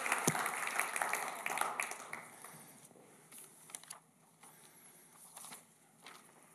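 Audience applause dying away over the first two seconds or so, followed by a few faint rustles and clicks of papers being handled at a lectern.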